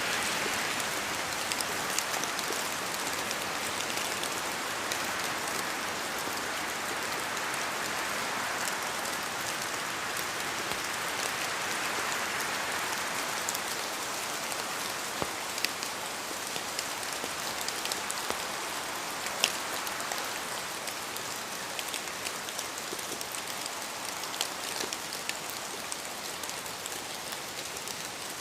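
Steady rain falling, a continuous hiss with scattered individual drops pattering sharply on a hard surface.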